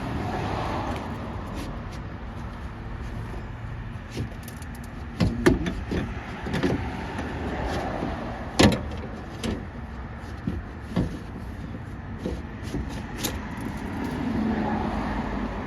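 Scattered knocks and clicks of a door window glass being worked into its track inside a car door, the sharpest knock about halfway through, over steady background noise.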